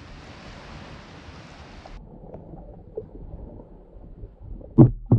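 Water and wind hiss on a pole-mounted GoPro's microphone that turns muffled and dull as the camera plunges underwater about two seconds in. Two heavy low thumps follow near the end.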